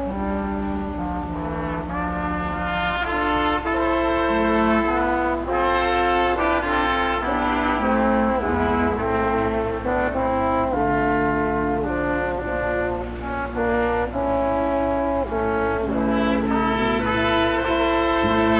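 Brass ensemble playing slow held chords in several parts, the notes changing together every second or so.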